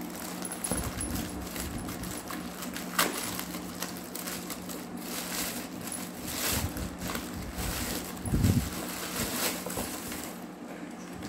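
Thin plastic carrier bags rustling and crinkling as hands unwrap packed groceries in a cardboard box, with a sharp click about three seconds in and a low thump a little after eight seconds.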